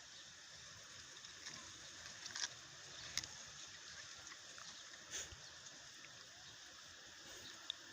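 Faint steady hiss with a few scattered light clicks and taps.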